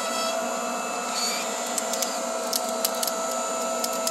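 Hydraulic log splitter's motor and pump running with a steady hum while the wedge is driven into a pine log. Scattered short sharp cracks in the second half as the wood begins to split.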